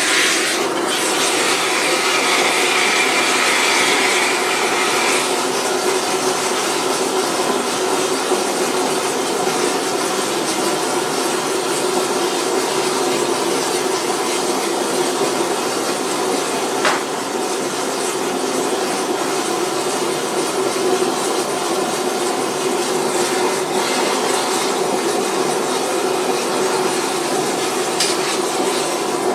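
Large gas burner flame burning with a steady rushing noise while sterling silver is melted, with one brief click partway through.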